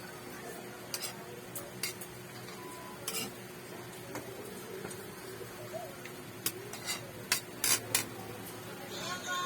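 Cutlery clinking against a dish while eating noodles and rice: scattered sharp clinks, several in quick succession near the end.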